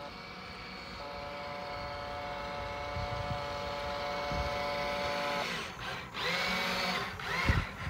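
Motor of a radio-controlled model tugboat whining steadily as it runs under power. After about five and a half seconds the pitch sweeps up and down as the speed changes, and there is a sharp thump near the end.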